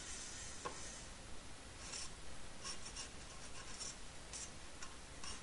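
Small hand file scraping along the cut edge of a thin copper strip in short, irregular strokes, cleaning off slag left from cutting.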